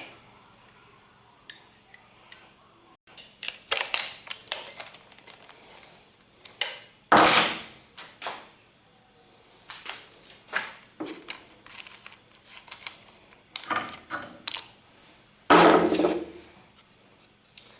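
Steel parts and tools clinking and knocking on a workbench as a metal latch is set up and clamped for cutting: irregular light clinks, with two louder clanks about seven seconds in and near the end.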